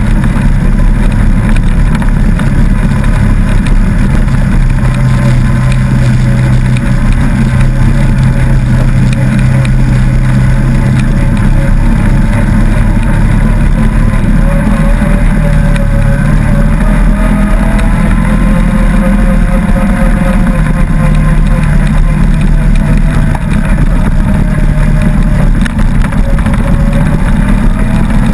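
Engine of an off-road vehicle running close to the microphone as it drives a dirt trail, its pitch rising and falling with the throttle.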